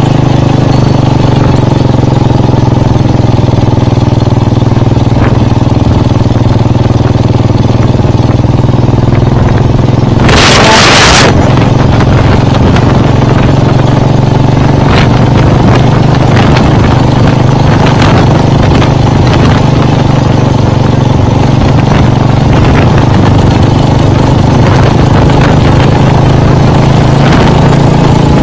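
Cruiser motorcycle engine running steadily at road speed, heard close up from the handlebars. About ten seconds in, a loud rush of noise lasts under a second.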